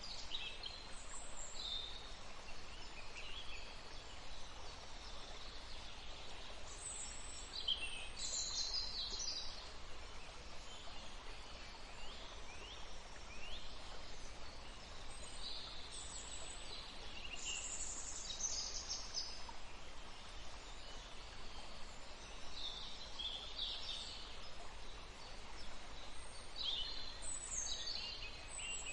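Steady hiss of running water, with songbirds calling in short clusters of high chirps and trills now and then over it.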